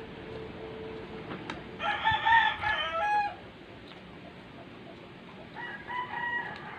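Rooster crowing twice: a loud crow about two seconds in, and a fainter crow near the end.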